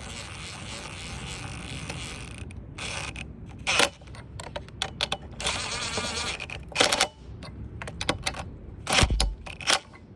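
Metal hardware of a mini chainsaw mill clinking and scraping as its clamp bolts are tightened onto the chainsaw bar. A steady scraping hiss at the start, then a series of sharp metal clicks and knocks.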